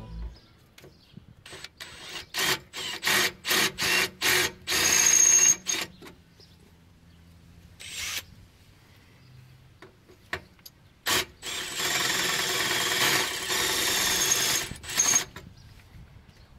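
Electric drill boring a larger hole through a thin steel underbody panel, enlarging a pilot hole. It runs in short trigger bursts at first, then one longer run of about three seconds near the end, with a thin high tone in the longer runs.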